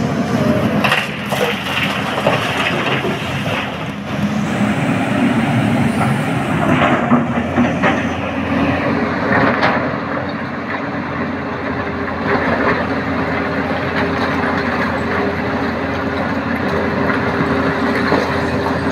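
Tata Hitachi ZAXIS 220 excavator working in broken rock. Its diesel engine runs steadily under load while rocks knock and clatter, first as a bucket-load drops into a dump truck body near the start, then as the bucket digs and scrapes through the rock pile.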